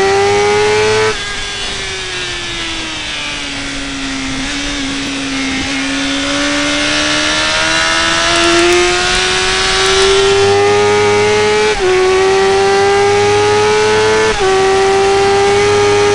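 Yamaha R1 inline-four sportbike engine heard from on board at track speed: throttle shut about a second in and revs falling through a corner, then hard acceleration with the engine note climbing and two quick upshifts near the end. Wind rush over the bike runs underneath.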